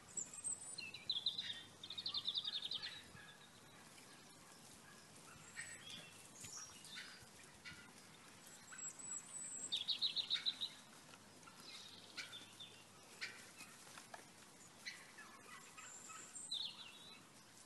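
Small songbirds singing outdoors: two loud, rapid high trills, one about a second in and one near the middle, with scattered short high chirps between them over a faint background hiss.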